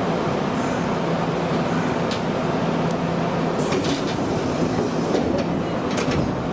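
Nagoya subway 3000 series electric train running on the line, heard from inside the leading car: a steady running rumble with a constant hum from the traction equipment, and a few sharp clicks from the wheels and track.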